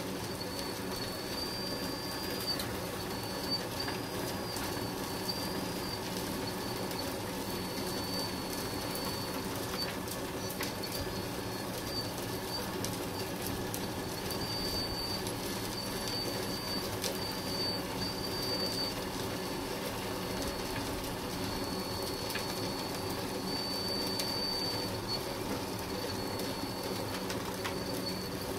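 Lesu PC360 RC hydraulic excavator working, its hydraulic pump running with a steady hum. A thin high whine comes and goes as the machine moves.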